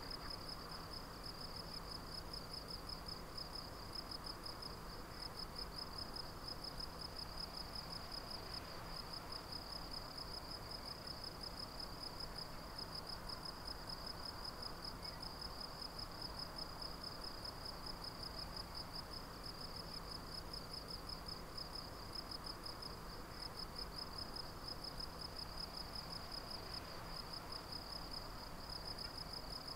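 Insect stridulating in a continuous high-pitched trill of rapid pulses that never stops.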